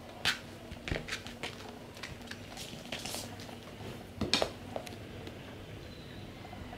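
Scattered light taps, clicks and scratches of kittens pouncing and batting at a wand toy. There are a few sharper knocks near the start, about a second in, and a louder cluster around four seconds in.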